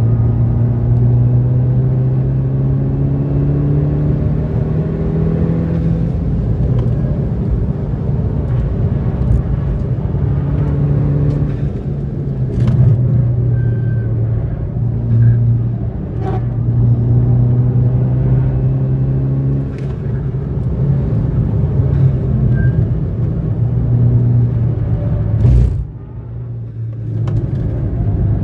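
Skoda Octavia RS engine heard from inside the cabin while driven hard on a race track, its note rising and falling with the throttle. The note drops away sharply near the end before picking up again.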